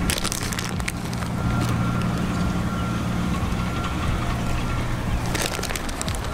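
An engine running steadily with a low hum, while a faint high steady tone comes and goes. Short clusters of clicks come near the start and again about five seconds in.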